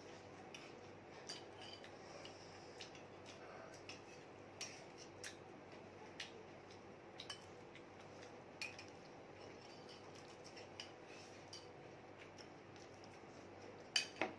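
Spoon clinking and scraping against a glass bowl as food is stirred and scooped, in scattered light clicks about once a second, with a louder cluster of clinks near the end.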